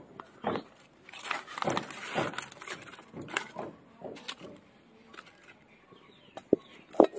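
Dry banana leaves and wood sticks rustling and crackling as they are pushed into a wood fire in a clay stove, then two sharp knocks near the end as a metal wok is set down on the stove.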